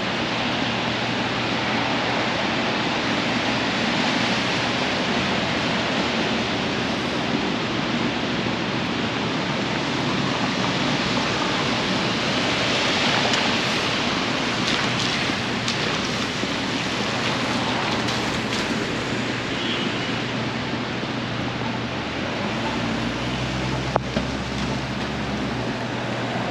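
Steady rushing hiss of rain and traffic on wet city streets. A vehicle's low engine hum rises under it for the last few seconds, with one sharp tick.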